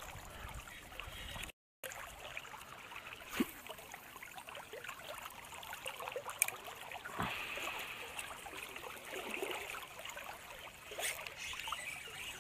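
Strong river current flowing and trickling, with a few faint clicks; the sound cuts out for a moment about one and a half seconds in.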